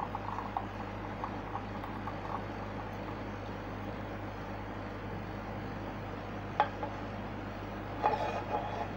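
Steady low background hum while thick condensed milk is poured from a pan into a ceramic bowl, the pour itself nearly silent. One sharp click about two-thirds through, and a short clatter of the pan against the bowl as the pour ends near the end.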